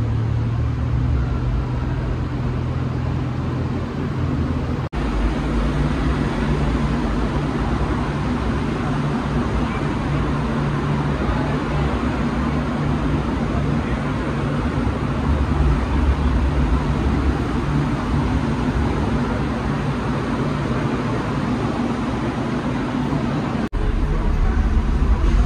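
Car engines running at low revs under a steady background of voices and traffic noise, with two abrupt breaks in the sound, one about five seconds in and one near the end.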